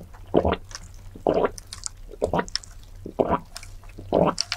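A person drinking through a straw, close-miked, with a wet gulp of swallowing about once a second, five in all, and small wet clicks of the mouth between them.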